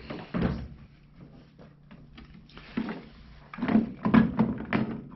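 Plastic knocks and rattles as a battery pack is slid and pushed into the battery bay of a Black & Decker cordless lawn mower. There is one knock about half a second in and a run of louder knocks in the last second and a half.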